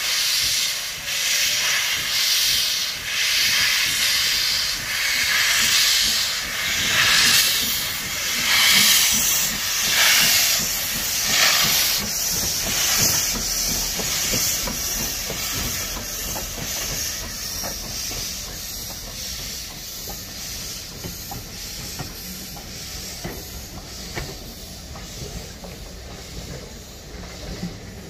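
Saddle-tank steam locomotive working a train past at low speed, its exhaust beating in an even chuff amid loud hissing steam. After about twelve seconds the beats fade and the coaches roll by with a lower, steady rumble.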